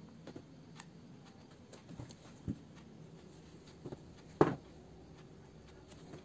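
Scattered light clicks and knocks of hands and tools handling laptop parts during disassembly, the loudest about four and a half seconds in, over a low steady hum.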